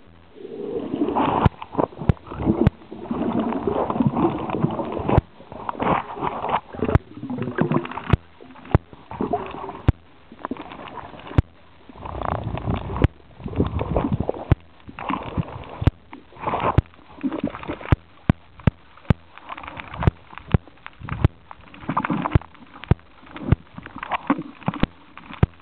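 Water gurgling and sloshing around a snorkeller's camera, heard muffled through the water, in irregular bursts with sharp clicks scattered throughout.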